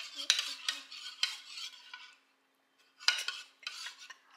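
A fork beating raw eggs in a ceramic bowl, scraping and clinking against the bowl in quick, uneven strokes, with a short pause a little past halfway.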